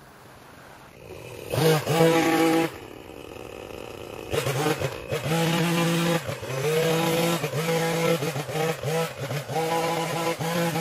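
Small gasoline engine of yard power equipment, revved hard briefly about a second and a half in, dropping back, then running again from about four seconds in with its speed rising and falling.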